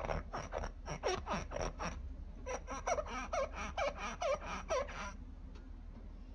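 Fingertips squeaking as they rub across a wet ceramic plate: a quick run of short squeaks, about five a second, that breaks off briefly about two seconds in and stops about five seconds in. It is the squeak of a glazed plate rubbed free of grease.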